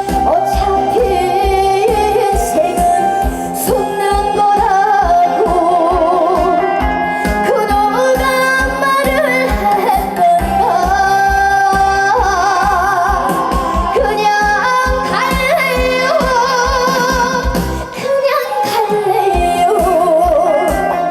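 A young female singer singing a Korean trot song with heavy vibrato over loud backing music with a steady beat.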